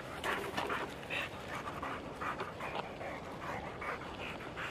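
American Bulldog panting rapidly, about two quick breaths a second.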